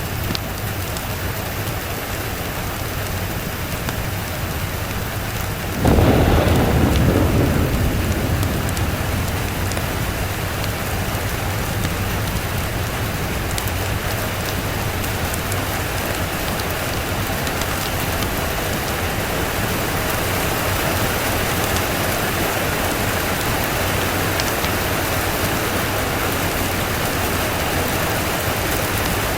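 Steady rain, with one thunderclap about six seconds in: a sudden low rumble that fades away over a few seconds.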